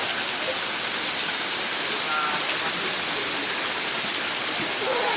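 Heavy rain falling steadily, an even hiss of rain on the ground and surfaces.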